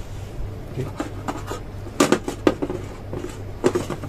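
Scattered clicks and taps of hands handling wires, a rocker switch and plastic terminal connectors on a bench, over a steady low hum.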